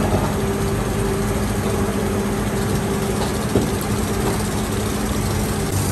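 Continuous sandwich-panel laminator line for PIR foam panels running: a steady mechanical hum with a low held drone.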